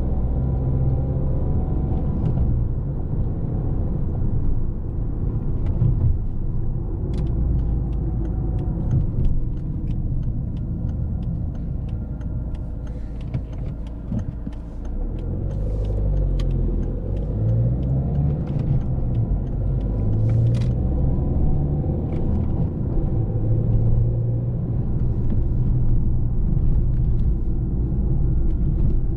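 A 2008 Volvo S40's 1.6-litre four-cylinder turbodiesel is driving, heard from inside the car over steady road rumble. The engine note rises and falls with the revs several times in the middle stretch, and a scatter of light ticks comes and goes.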